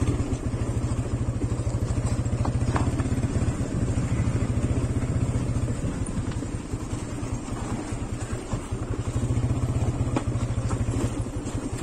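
TVS Apache 180 motorcycle's single-cylinder engine running steadily while the bike is ridden along a rough dirt trail, its note easing a little in the middle and picking up again near the end, with a few light clicks.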